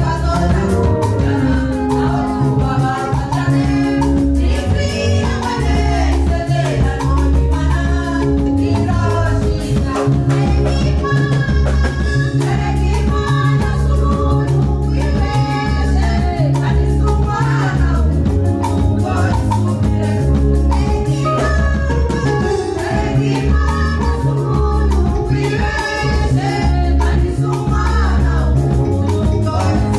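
Women's choir singing into microphones over amplified accompaniment with a strong bass and a steady beat.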